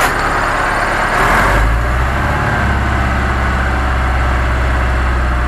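Perkins diesel engine of an Ostrówek backhoe loader running, heard from inside its cab. It grows louder about a second in, then runs steady.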